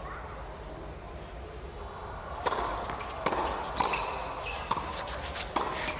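Tennis ball hit back and forth on a hard court: a quick run of sharp racket strikes and ball bounces during a doubles rally, starting about two and a half seconds in.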